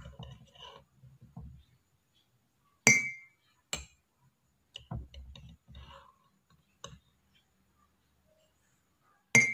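A metal spoon scooping and scraping inside a glass jar, with three sharp ringing clinks of metal on glass: about three seconds in, a moment later, and again near the end.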